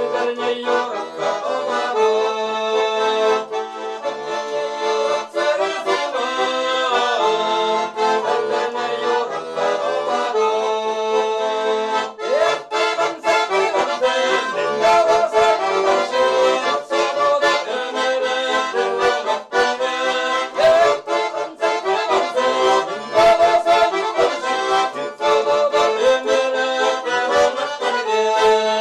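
Russian garmon (button accordion) playing a folk-song melody over held chords, with a man singing along in places.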